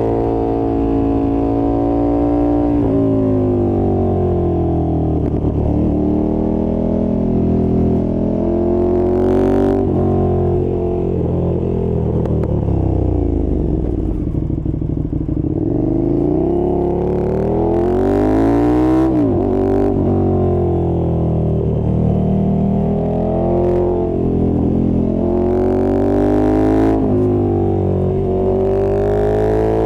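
2020 KTM 1290 Super Duke R's V-twin engine under way, revs climbing and falling as it works through the gears. About halfway through the pitch sinks on a long deceleration and climbs again, then drops sharply once more shortly after.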